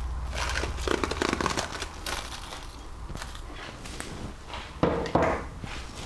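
Plastic cling film crinkling and rustling as it is stretched over a glass bowl and pressed down, with two louder crinkles close together near the end.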